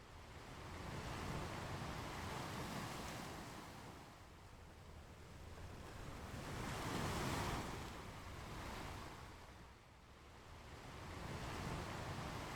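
Ocean waves breaking and washing up a beach: surf swells and recedes about every five seconds, the loudest wave breaking about seven seconds in.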